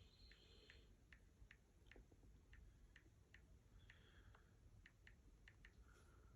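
Near silence broken by a run of faint, light clicks at uneven intervals, about two or three a second.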